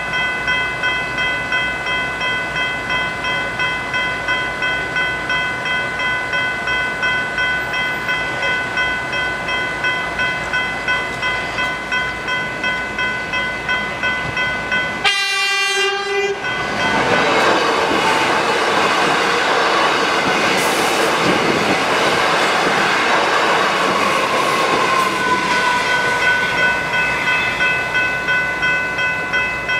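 General Signals Type 3 electronic level-crossing bells ringing in a steady, fast repeating rhythm. About halfway through, an electric suburban train sounds its horn once, briefly, then passes through the crossing with loud rail and wheel noise that drowns out the bells, which are heard again near the end.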